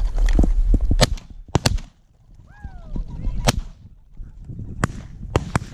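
Several hunters firing shotguns at flushing pheasants: about seven shots in irregular succession, two of them nearly together. Midway through, one short bird call falls in pitch.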